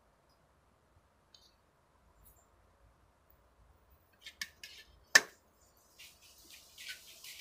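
Tableware being handled: a handful of short, sharp clicks from about four seconds in, with one loud knock a second later and a few lighter clicks near the end.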